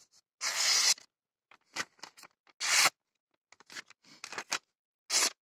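A homemade knife made from a plough disc blade slicing through a sheet of paper in several separate strokes, each a short dry hiss, the longest about a second in. The clean cutting shows the edge is very sharp.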